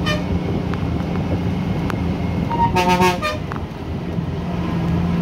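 Steady drone of a moving bus's engine and road noise heard from inside the cabin, with a vehicle horn honking for under a second about three seconds in.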